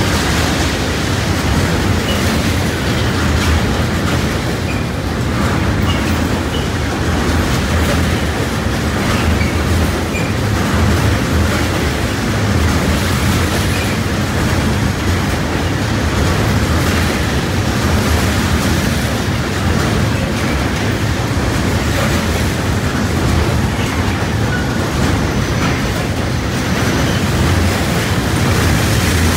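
Freight train of tank wagons rolling past close by: a loud, steady rumble of wheels on the rails that does not let up.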